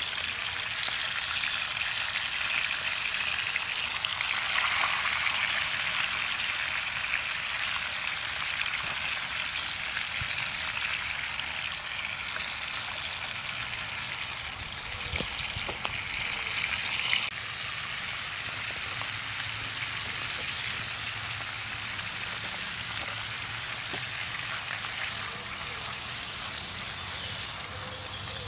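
Bacon sizzling in a cast iron skillet over campfire embers, a steady hiss that eases a little about two-thirds through. A few light knocks from the wooden spatula as the rashers are moved.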